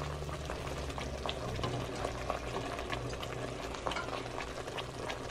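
Thick tomato-onion masala bubbling in a karahi over the flame, with scattered small pops and spits.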